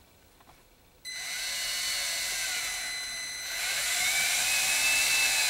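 Cordless drill-driver driving a screw through a speaker mounting ring into a car door panel. A steady motor whine starts about a second in and grows louder partway through as the screw bites.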